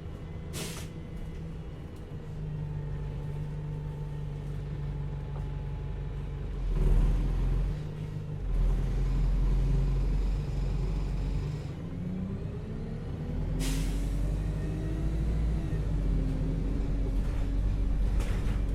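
Bus engine running and changing speed, its drone rising and falling in pitch. Short sharp hisses of released air, typical of air brakes, come just after the start, about two-thirds of the way through, and near the end.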